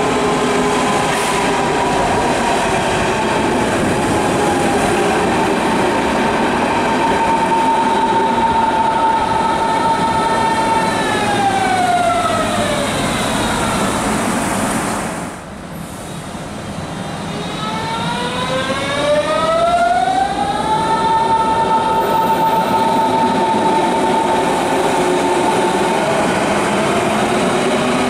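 Berlin S-Bahn electric train's traction motor whine over the rumble of the cars: a steady high tone that glides down and fades about halfway through, then after a short break glides back up and holds as the train gets under way.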